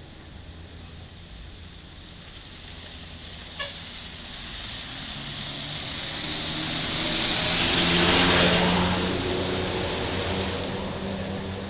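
A motor vehicle drives past, its engine and tyre noise growing louder to a peak about eight seconds in and then fading away. There is a short click about three and a half seconds in.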